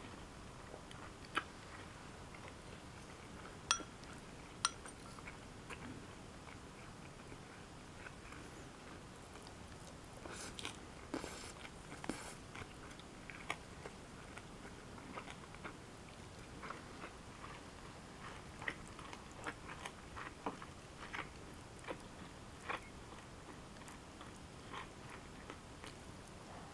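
Close-up chewing and biting of a mouthful of ginger-fried pork and rice, soft wet clicks and light crunches. A few sharp isolated clicks come first, then the chewing runs on steadily from about ten seconds in.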